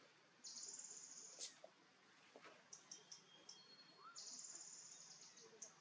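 Faint wildlife calls: a high-pitched buzzing trill sounds twice, each about a second long, with a few short high chirps between, over a quiet background hiss.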